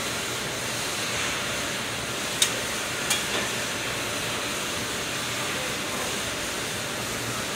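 Steady, even machine hiss with a faint low hum, as from a hydraulic press brake running idle. Two sharp clicks come less than a second apart, about two and a half seconds in.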